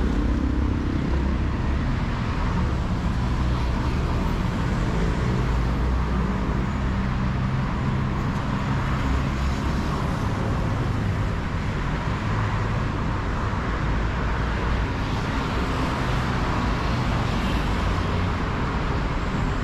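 Steady city road traffic: a continuous wash of passing cars and buses with low engine rumble.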